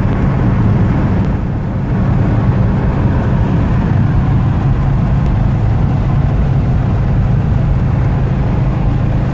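Volkswagen Type 2 Westfalia camper bus driving at highway speed, heard from inside the cab: a steady engine drone with road and wind noise.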